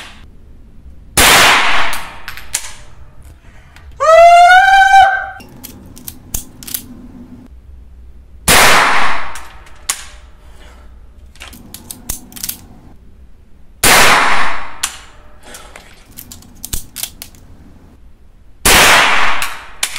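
Four single shots from a Walther Colt M4 OPS .22 LR rifle, several seconds apart, each with a short echo. Between them come lighter clicks and clacks of the action being worked by hand, because the rifle is not cycling on its own. About four seconds in, a loud high-pitched rising cry.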